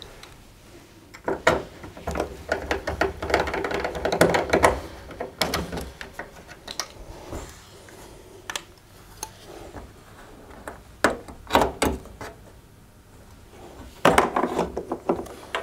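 Irregular clicks, knocks and clatter of a tumble dryer's heater assembly, plastic housing and metal, being worked loose and pulled out of its opening in the back panel.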